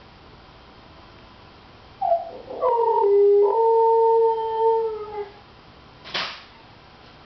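Siberian husky howling: one long howl of about three seconds that starts a couple of seconds in with a falling glide, breaks briefly, then holds a steady pitch and tails off downward. A short, sharp noise follows about a second later.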